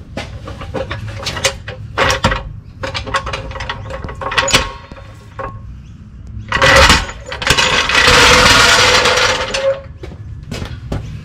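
Hydraulic floor jack being let down from under a manual gearbox and pulled out: scattered metal clicks and knocks, then a loud scraping rush lasting about three seconds from about six seconds in, as the jack's wheels roll across concrete.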